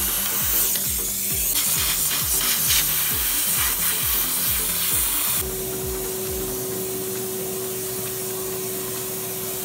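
Shop vacuum sucking up metal drilling chips with a loud hiss for about five seconds, then the hiss drops to a quieter steady sound. Background music with a steady beat plays throughout.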